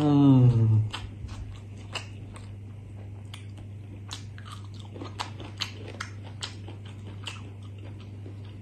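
Close-miked eating with the fingers: a man chewing rice and curried tripe, with many short wet mouth clicks and smacks scattered throughout. It opens with a short, loud voiced sound from him, falling in pitch and lasting under a second. A low steady hum runs underneath.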